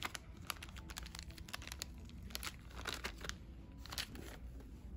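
Small clear plastic zip bag crinkling as fingers handle it, in irregular light crackles.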